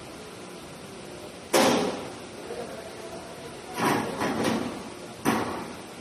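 Several sharp knocks on steel pallet racking as a worker moves on it: the loudest about one and a half seconds in with a short ring after it, a quick cluster around four seconds, and one more near the end.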